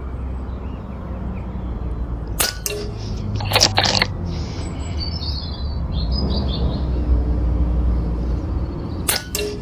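A .177 air rifle firing: sharp cracks a couple of seconds in, again about a second later, and twice near the end, over a steady low rumble, with a bird chirping between the shots.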